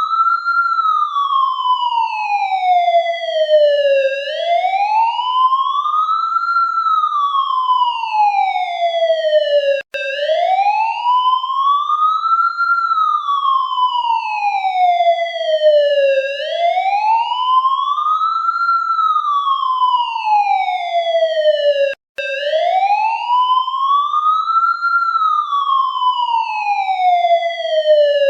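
Police siren sounding a slow wail, its pitch rising and falling about every six seconds. It breaks off for an instant twice, about ten and twenty-two seconds in.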